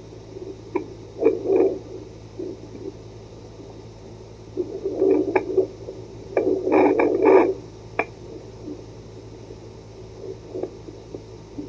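Home fetal Doppler's speaker output: a steady hum and static hiss with uneven swishing bursts and a few sharp clicks, bunched together about five to seven and a half seconds in.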